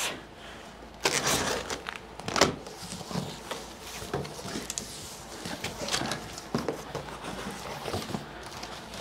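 Cardboard shipping box being opened by hand: cardboard rustling and scraping with a few short knocks as its flaps are pulled open, and a longer rasp about a second in.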